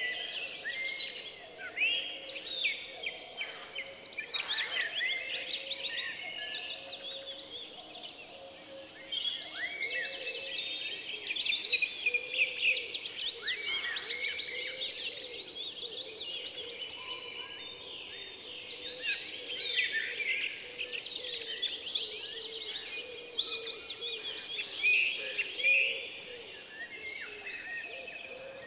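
Many small songbirds singing at once, a dense chorus of quick overlapping chirps and trills, with a fast high trill standing out near the end.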